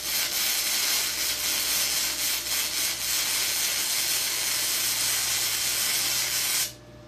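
Gasless flux-core wire-feed arc welding on 3–4 mm scrap steel at about 18.7 volts: the arc's steady crackling sizzle, which stops abruptly near the end when the trigger is released.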